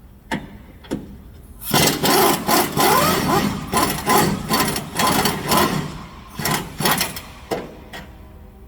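Power wrench running in bursts, loosening the bolt of a rear shock absorber on a 2016 Chevy Silverado 1500, after two short knocks of the tool being fitted. The run of bursts starts a couple of seconds in and stops about a second before the end.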